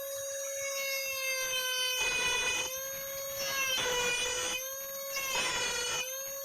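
Small high-speed rotary carving tool running with a steady whine while cutting grooves in wood. From about two seconds in, the bit bites in repeatedly in gritty bursts roughly once a second, the whine dipping slightly in pitch under each cut.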